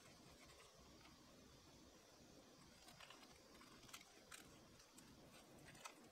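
Near silence broken by a few faint, sharp snips of kitchen scissors cutting perilla leaves.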